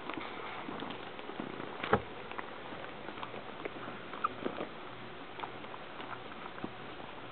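Three-week-old Shih Tzu puppies shuffling and scrabbling about, with scattered small scratches and clicks, a sharper knock about two seconds in and a brief high squeak a little after four seconds, over a steady hiss.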